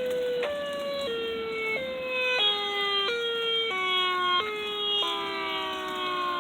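Outdoor warning siren sounding as a chord of several tones whose pitch jumps up and down in steps about every half second. From about five seconds in, the pitch slides steadily down as the siren winds down toward shutting off.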